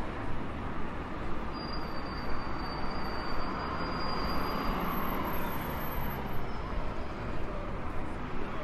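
Steady city traffic noise from cars and a bus passing on the road, with a slight swell as a vehicle goes by near the middle.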